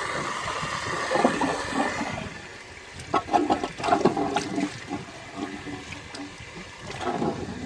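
Old cast-iron toilet cistern being flushed, with water rushing and gurgling through it. The flush is strong.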